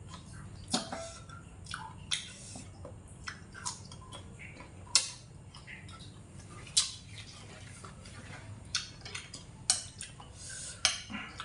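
Close-up chewing of fried pork ribs, with wet smacks and crisp crunches at irregular moments about one to two seconds apart. Near the end a spoon clinks and scrapes on a ceramic plate.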